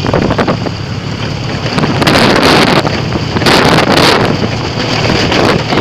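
Wind buffeting the microphone: a loud, uneven rushing and rumbling, with two stronger gusts about two and three and a half seconds in.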